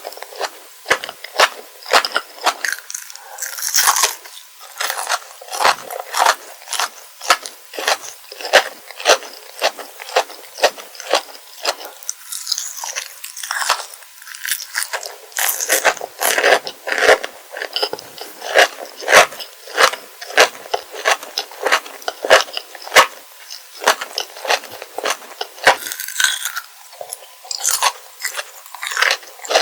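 Close-miked crunching and chewing of kohakutou, Japanese crystal jelly candy: its crisp sugar shell cracking in quick, sharp clicks with each bite, over a soft chewy squish.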